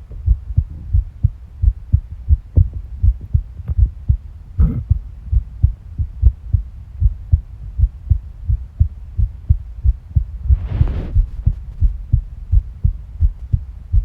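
Human heartbeat heard close through the body: a steady rhythm of low thumps. A short swishing noise comes about four and a half seconds in, and a longer one about ten and a half seconds in.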